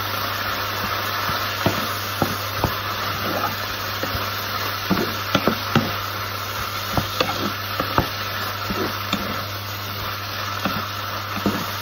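Water spinach stir-frying in a hot oiled pan: steady sizzling, with a wooden spatula knocking and scraping against the nonstick pan at irregular moments as the greens are tossed.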